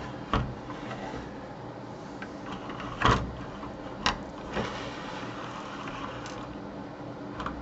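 A few knocks and clunks of a broken LED wall clock's case being turned around on a workbench, the loudest about three seconds in, over a steady low hum.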